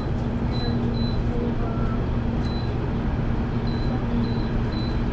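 Window air-conditioner unit running on high: a steady fan and motor noise with a low, even hum. Faint short high peeps recur over it.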